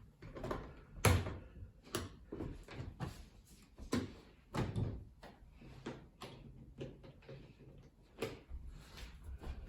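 Irregular knocks and clicks from working the lid and latches of a Pioneer DJ flight case to get the top off, the sharpest about one, two and four seconds in.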